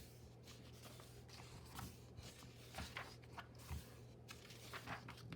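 Faint rustling and scattered light taps from a picture book being handled, its pages turned, over a steady low hum.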